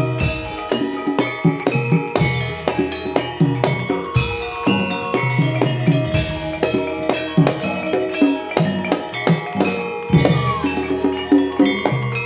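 Jaranan gamelan music: kendang drum strokes and struck metal pitched percussion in a quick, steady rhythm, with a crash that comes in about every two seconds.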